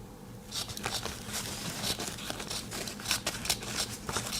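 Small spring-loaded scissors of a Victorinox Ranger Swiss Army knife snipping toilet paper: a quick run of snips with the paper crinkling, starting about half a second in.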